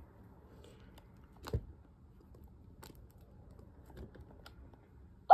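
Faint scattered clicks and taps with one louder knock about a second and a half in, from a plastic toy doll being handled and its buttons pressed.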